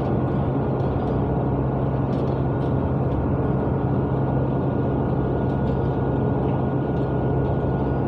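Bus engine and cabin noise heard from inside a moving bus: a steady low drone with a thin constant whine above it and a few faint rattles.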